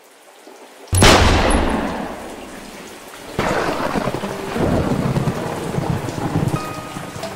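A sudden thunderclap about a second in that rumbles away over a couple of seconds, then rain and a second rumble of thunder that carry on. A few soft musical notes come in near the end.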